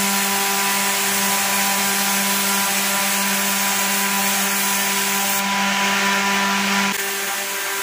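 Paint spray gun hissing steadily while spraying silver paint, with a steady motor hum beneath the hiss. The hum cuts off about seven seconds in while the hiss carries on.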